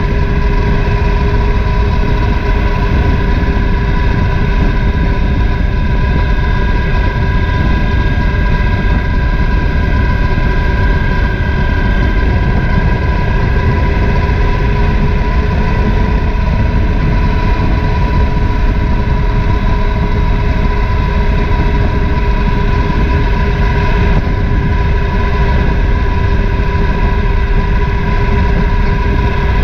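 Triumph Thunderbird LT's 1700 cc parallel-twin engine running at a steady road speed, its note holding level, under heavy wind and road rumble on a camera mounted low by the front wheel.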